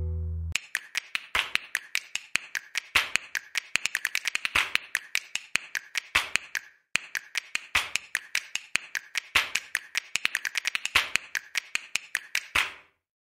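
Plastic building bricks being handled and pressed together: a quick, irregular run of small clicks and clacks, several a second, with a brief pause about seven seconds in.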